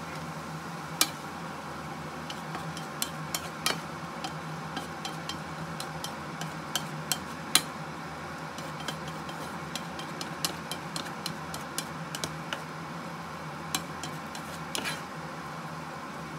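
Wooden spatula stirring glass noodles and shrimp in a nonstick frying pan, with irregular clicks and knocks as it scrapes and taps the pan. A steady low hum runs underneath.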